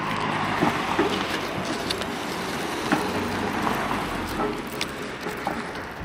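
Street traffic noise: a steady hiss of car tyres on the road, fading near the end, with a few light ticks from footsteps.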